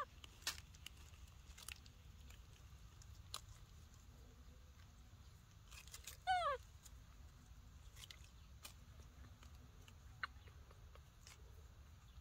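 Baby monkey giving one short squeak that falls in pitch about six seconds in, amid faint scattered clicks from eating fruit and small movements.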